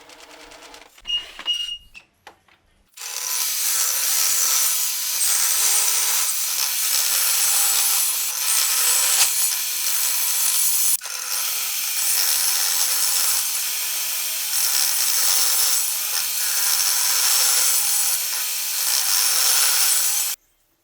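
A power tool working wood runs steadily for about seventeen seconds: a steady motor hum under a loud hiss of cutting or abrading. It drops out for an instant about eleven seconds in and stops abruptly near the end. Before it starts there are a few faint knocks and a short high squeak.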